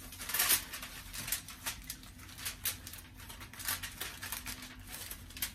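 Heavy-duty aluminum foil crinkling and crackling as it is pressed and crimped tight around the rim of a roasting pan: a run of irregular crackles, loudest about half a second in.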